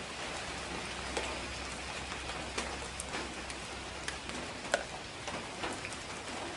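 Steady hiss with scattered light ticks, with a low hum underneath that stops about four and a half seconds in.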